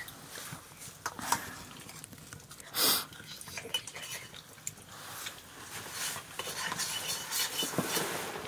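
Metal cooking utensils clinking and scraping against pots and dishes. There is one loud, brief noisy rush about three seconds in, and the clatter grows busier near the end.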